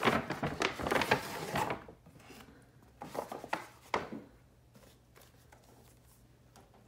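Paper shopping bag rustling and crinkling as it is lifted and handled, loudest in the first two seconds. A few more rustles and light taps come around three to four seconds in as the phone box is drawn out.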